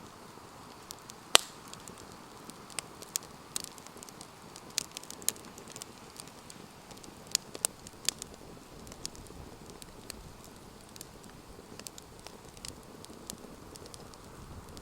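Wood campfire crackling: irregular sharp pops and snaps over a soft steady hiss of burning, with one loud pop about a second in.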